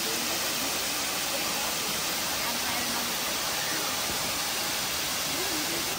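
Brandywine Falls, a tall waterfall pouring down a layered rock cliff, making a steady rushing hiss of falling water.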